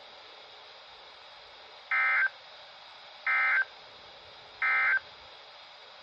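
A Midland NOAA weather radio's speaker sounds three short bursts of buzzing data tones, about a second and a half apart. This is the SAME digital end-of-message code that closes a weather-radio required weekly test broadcast.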